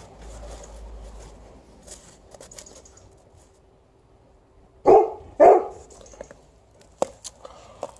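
A dog barks twice, loud and about half a second apart, roughly five seconds in. Before that there is faint crunching as a dog digs its nose and paws into snow.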